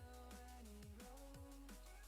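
Quiet electronic background music: a kick drum thumping about twice a second under a held bass note and a synth melody.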